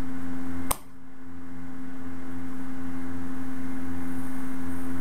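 Steady electrical hum with a strong low tone, broken by a single sharp click less than a second in, after which the hum drops away and slowly swells back.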